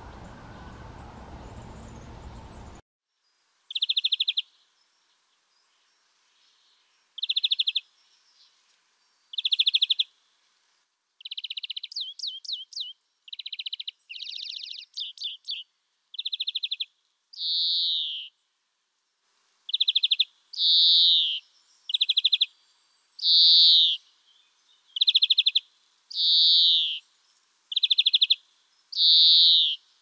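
Middle spotted woodpecker calling: a slow series of short buzzy notes, and from about 11 s longer drawn-out notes that fall slightly in pitch, the two kinds alternating. A steady low background noise runs for the first three seconds and cuts off suddenly before the calls begin.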